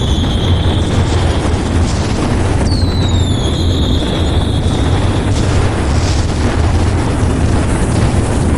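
Fireworks display: a continuous heavy booming rumble, with a whistling rocket whose whistle falls in pitch then holds near the start, another about three seconds in, and a few faint cracks in the second half.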